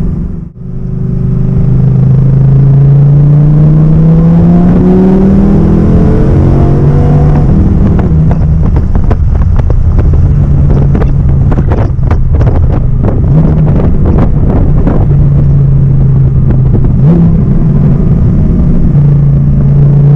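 Audi R8's V10 engine under way, its pitch rising smoothly for a few seconds as it accelerates, then running at a steady pitch. In the middle there is a run of sharp cracks and clicks.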